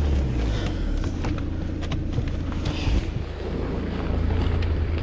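Car engine dropping back from a held 2,500 rpm in the first half-second and then idling steadily, with a few light clicks over it.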